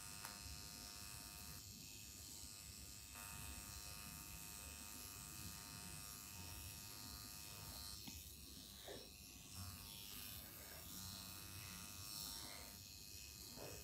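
Faint electric buzz of a small motor, steady while it runs, cutting out and coming back several times.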